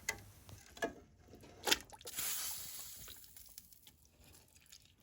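Kitchen pot and utensil knocks, three sharp ones in the first two seconds, then a hiss of liquid splashing into a pot that fades over about a second and a half.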